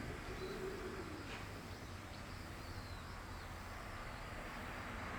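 Outdoor ambience: a steady background hiss with faint, short bird chirps scattered through it.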